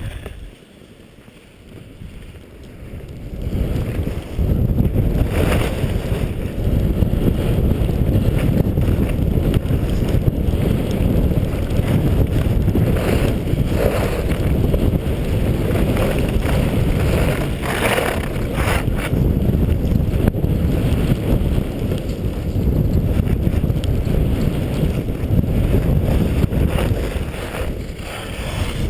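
Wind rushing over the microphone of a camera carried by a downhill skier, a loud low rumble that builds over the first four seconds and then holds steady, with a few brief swishes of skis in powder snow.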